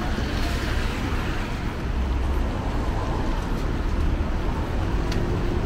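Steady city street noise, mostly a low traffic rumble, with a brief click about five seconds in.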